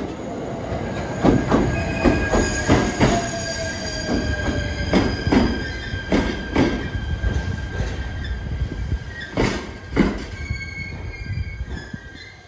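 SR1-series electric multiple unit pulling out along the station track: its wheels clack in quick irregular groups over rail joints and points, with a steady high wheel squeal through most of the passage. A tone falls slowly in pitch in the first half.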